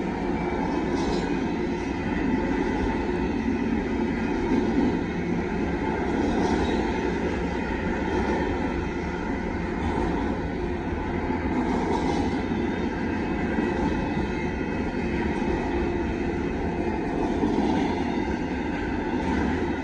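Double-stack intermodal freight train rolling past: a steady rumble of the container well cars' wheels on the rails.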